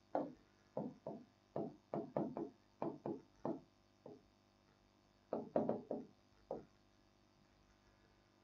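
Chalk writing on a blackboard: a quick run of short taps and scrapes as a word is written, stopping about two-thirds of the way in.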